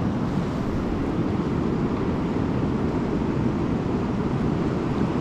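Steady rushing roar of a fast mountain river, the Kali Gandaki, heavy in the low end and unchanging.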